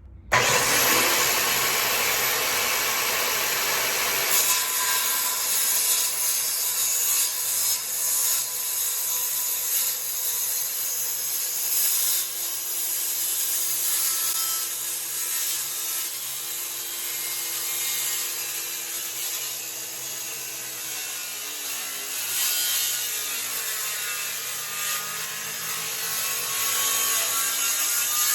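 Handheld circular saw starting suddenly and cutting into a wooden 4x6 beam, running steadily under load for a long stretch. Its blade's depth of cut is about 2 inches against a beam about 4 inches thick, so it does not cut all the way through.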